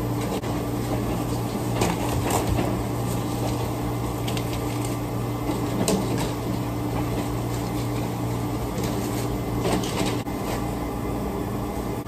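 Steady low hum of restaurant kitchen equipment, with scattered sharp clicks and knocks of containers and lids being handled.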